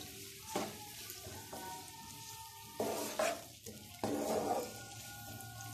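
Chopped onions sizzling in hot oil in a non-stick frying pan, stirred with a wooden spatula that scrapes across the pan in several strokes, the loudest about three and four seconds in.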